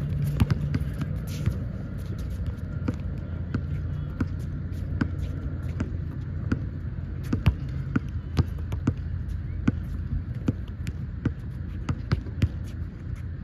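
A flat, underinflated basketball being dribbled and bounced on a hard court: a run of short, irregular thuds over a steady low hum.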